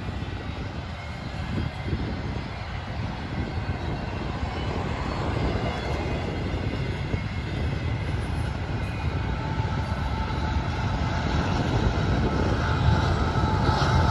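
Double-stack container freight cars rolling past: a steady rumble and clatter of steel wheels on rail. Over the last couple of seconds it grows louder and a steady engine drone comes in as a Canadian Pacific mid-train diesel locomotive approaches.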